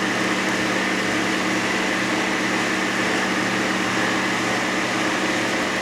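A motor-driven machine running with a steady whir and a faint hum.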